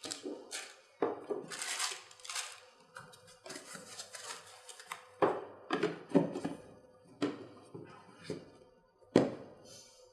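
Small parts and packaging of a Wi-Fi doorbell kit handled on a table: an irregular string of knocks, taps and clicks with short rustles between them, the loudest knock about nine seconds in.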